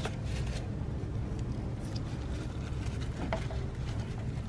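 A rag wiping a plastic coolant hose quick-connector: faint rubbing and handling noises, with a small click about three seconds in, over a steady low hum.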